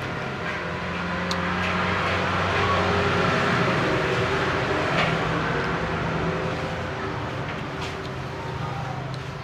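A motor vehicle's engine going by, growing louder over the first few seconds and then fading, with a few light clicks over it.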